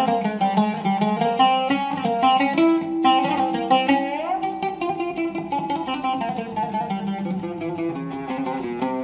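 Solo oud with a cedar soundboard, plucked in an improvisation in a maqam: quick runs of notes, with one note slid upward on the fretless neck about four seconds in, then slower, longer notes.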